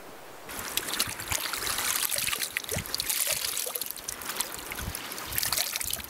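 Wet cloth being dunked, swished and wrung out in shallow water: splashing, with water pouring and dripping back off it. It starts suddenly about half a second in.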